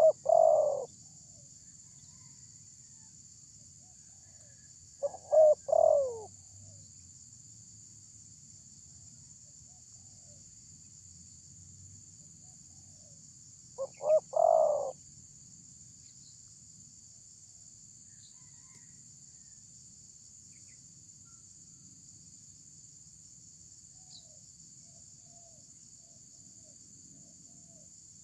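Spotted dove cooing: three separate phrases, each a couple of quick notes and a longer final coo, near the start, about five seconds in and about fourteen seconds in. A steady high hiss runs underneath.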